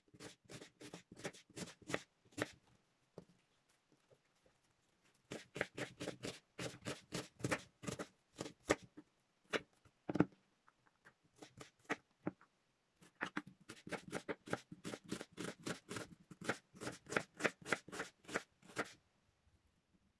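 Chef's knife chopping an onion on a wooden cutting board: quick runs of knocks of the blade on the board, several a second, broken by two short pauses and stopping just before the end.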